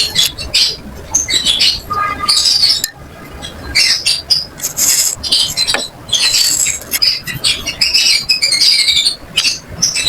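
White slate pencils being crunched: a rapid run of crisp, crackly crunches, with short lulls about 3 and 6 seconds in.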